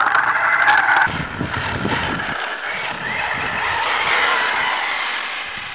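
Thunder Tiger RC buggy's motor running at high revs, its pitch rising in the first second. After a sudden drop in level it is heard from further off, climbing again in pitch and then fading as the buggy drives away.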